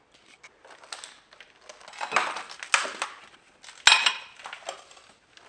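Crunching, scraping and clinking of debris and crockery among piled plates and glasses, in a run of short irregular bursts. One sharp clack comes a little before four seconds in.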